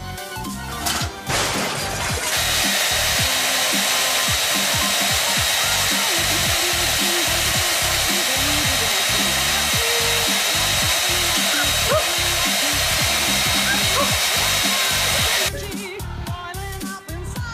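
A loud, steady rushing noise of a small electric motor starts about two seconds in and cuts off suddenly about two seconds before the end, over background music.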